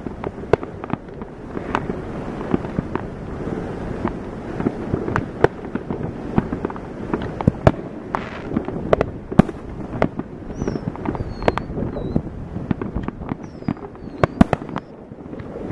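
Many fireworks going off at once, near and far: a steady rumbling crackle of distant bursts, broken by sharp bangs every second or so from aerial shells and firecrackers.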